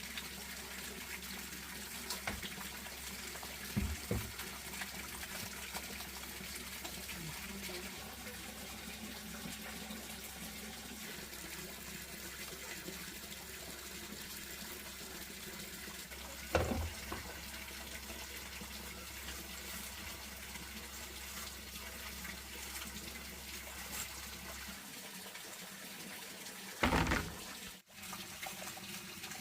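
Water running steadily, with a few dull knocks here and there, the loudest near the end.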